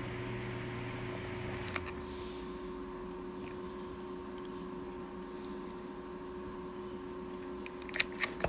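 Faint steady hum of a Lasko 2002W 6-inch table fan's small motor, the faint startup sound it makes. A click comes about two seconds in, where a lower hum drops away, and three quick clicks come near the end.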